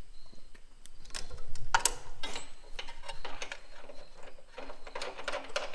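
Ratchet mechanism clicking in irregular runs, metal pawl on a toothed wheel, as a fastener or pull is drawn tighter on truck repair work; the loudest clicks come about two seconds in and again near the end.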